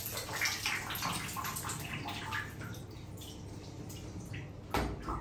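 Water splashing and dripping in a tiled shower, in many short sharp splashes that die down after about three seconds, then a brief thump near the end.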